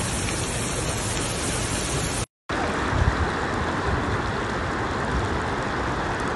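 Rushing floodwater: a steady hiss of fast-flowing water that drops out for a moment about two seconds in, then comes back as a duller, lower rush.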